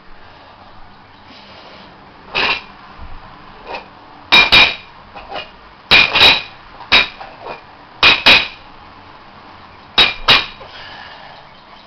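Metal weight plates clinking as they are set down one at a time onto a stack, a sharp metallic clink, mostly doubled, about every two seconds, each with a short ring.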